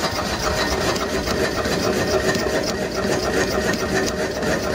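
Homemade alpha-type Stirling engine generator running under alternator load at just under 200 RPM: a steady, rhythmic mechanical clatter with a steady tone beneath it. The knocking from the hot pistons has been largely cured, though the engine is turning slower than its builder wants.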